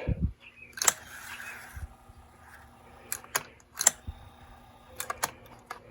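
A handful of sharp, separate clicks and small knocks from handling a vintage Dictaphone tape player, its lid pushed closed and a jumper wire clipped onto its control leads, over a faint hum.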